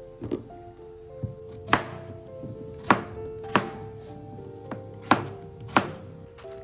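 Kitchen knife cutting peeled potatoes on a plastic cutting board: a series of sharp knocks as the blade hits the board, roughly one a second, with soft music underneath.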